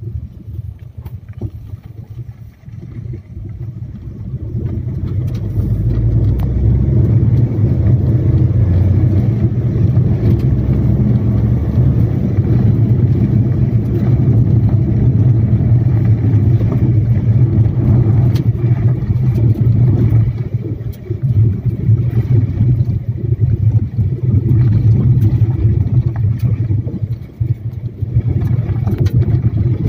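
A vehicle driving along a dirt airstrip: a steady low rumble of running gear and road noise that builds over the first few seconds as it gathers speed, then holds, dipping briefly about twenty and twenty-seven seconds in.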